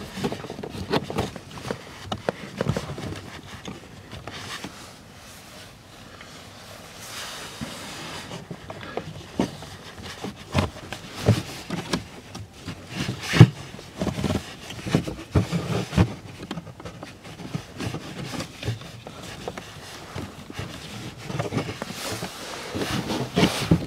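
A cabin air filter being worked and tugged out of its plastic housing by hand: irregular knocks, scrapes and rustling, with the loudest knock about halfway through.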